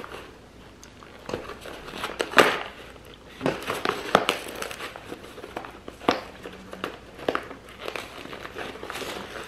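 A small cardboard box being torn open by hand: crinkling with irregular sharp rips and crackles, the loudest about two and a half seconds in.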